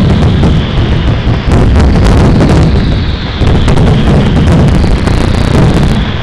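Fireworks display: a dense barrage of aerial shells bursting, the booms running together into a continuous loud rumble with sharp cracks and crackle on top.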